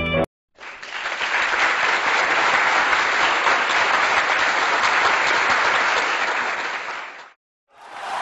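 Background music cuts off at the start. After a brief gap, a crowd's applause rises, holds steady and fades out near the end, and a second round of applause starts just before the end.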